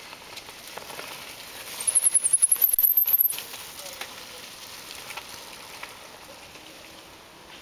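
Mountain bike passing close on a dry, leaf-covered dirt trail: a loud run of rapid clicking and crackling from the bike and its tyres on the leaves, lasting about a second and a half, about two seconds in.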